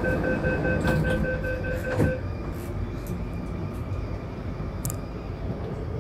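MTR Tuen Ma Line C-train door-closing warning: a rapid run of evenly spaced beeps that stops about two seconds in with a thud as the doors shut. The steady low rumble of the metro carriage continues after it.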